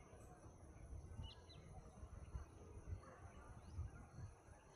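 Near silence outdoors: a faint low rumble with a few brief, faint chirps from small birds in the distance.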